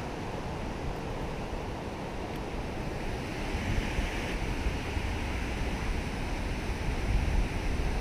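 Steady rush of river whitewater spilling past rocks below a low weir, with wind buffeting the microphone in low rumbles.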